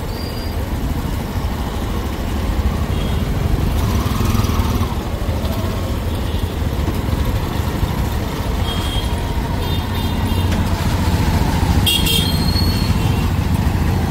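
Motorcycle engine running at low speed in dense traffic, with a steady low traffic rumble. Several short high-pitched horn beeps from surrounding vehicles come a little past the middle and again about two seconds before the end.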